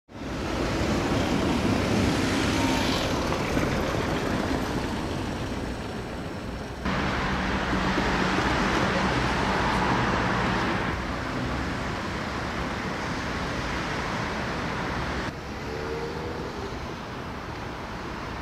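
Steady city traffic noise from passing cars on a busy street. The sound changes abruptly twice, about seven and fifteen seconds in, where the footage is cut.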